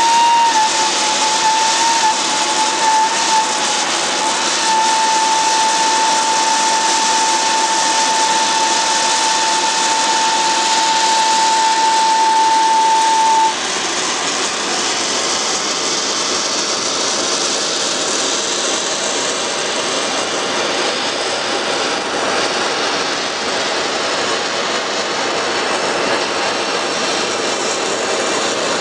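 Volcanic steam vent (fumarole) at Kamojang crater jetting pressurised steam with a loud, steady rushing hiss that sounds like a train. A steady high whistle rides on top for the first half and cuts off suddenly about halfway through.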